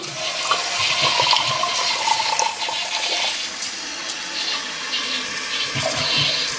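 1993 Kohler Wellworth Lite toilet flushing: water rushing out of the tank and down through the bowl, starting suddenly and running on steadily.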